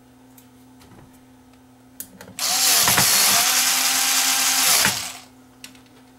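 Cordless screwdriver driving a screw into the amplifier's sheet-metal bottom cover: a few small clicks as the bit seats, then about two and a half seconds of motor whine that dips in pitch briefly as the screw bites, runs steady, and winds down.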